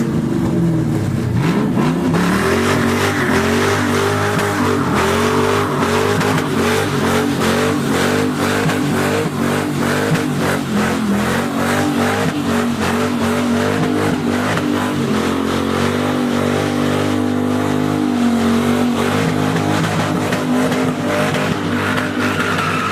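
2004 Pontiac GTO's 5.7-litre V8 through a 2.5-inch exhaust with single-chamber Flowmaster mufflers, running loud under throttle. Its pitch drops and then climbs near the start and keeps rising and falling after that.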